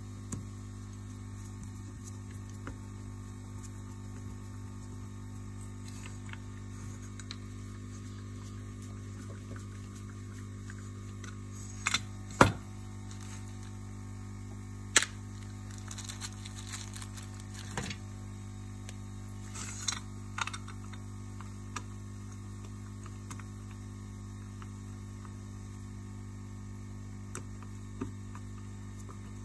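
Steady electrical mains hum. Over it come scattered sharp metallic clicks and taps of a screwdriver and small screws as a screw is driven to fix a UHF chassis socket to an amplifier's metal case. The loudest click comes about twelve seconds in.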